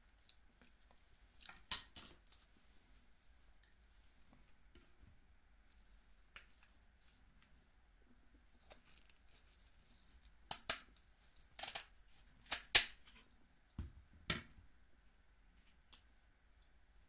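Scissors snipping through the shell of a steamed snow crab leg. A few faint clicks come near the start, then a run of sharp, loud snips and cracks from about ten to fifteen seconds in, with a dull knock just before the last of them.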